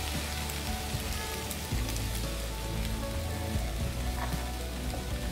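Steady hiss of onions, garlic and tomatoes sizzling in a hot karahi, with quiet background music underneath.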